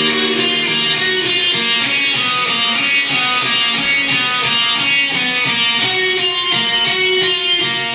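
Live band playing an instrumental passage: electric guitars carry a melodic line of quick notes over bass and drums.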